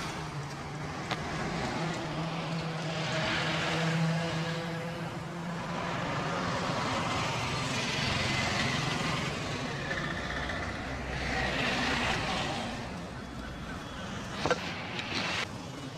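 Road traffic passing on a street: a steady engine hum that swells several times as vehicles go by, with a brief click near the end.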